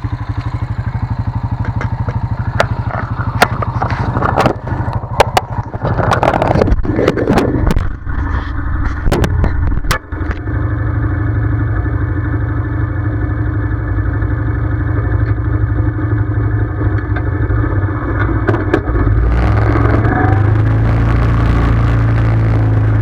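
ATV engine idling with a low, even throb, with a run of sharp clicks and knocks over the first ten seconds. The engine note then steadies and grows louder about nineteen seconds in as the machine sets off.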